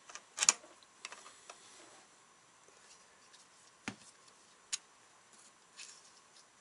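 Scattered light clicks and small metal taps of steel calipers being handled: a digital caliper being reset and its jaw slid, its tips touching a crankshaft cheek inside a motorcycle engine crankcase. The sharpest clicks come about half a second in and near four and five seconds in.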